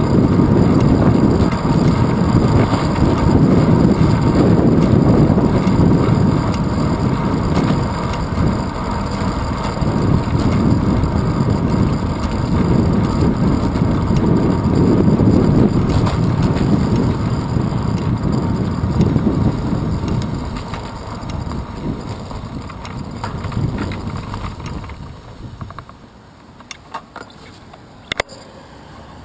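Wind buffeting and road rumble picked up by a handlebar-mounted GoPro Hero 2 on a moving bicycle. The rumble drops away near the end, leaving a few sharp clicks.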